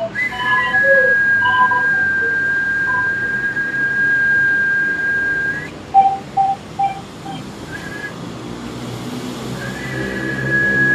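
A high, steady whistle-like tone held for about five and a half seconds. A few short, lower notes follow, and the tone comes back near the end.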